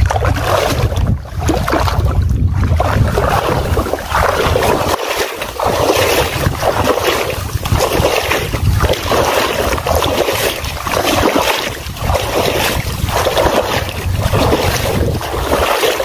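Wind buffeting the microphone over repeated splashing from a hooked snakehead thrashing at the water's surface.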